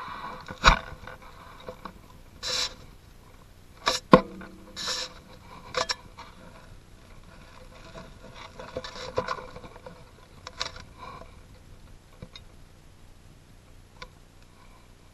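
Handling noise close to a rifle-mounted camera in a hunting blind: scattered knocks, clicks and short scrapes. Two sharp knocks, one just under a second in and one about four seconds in, are the loudest.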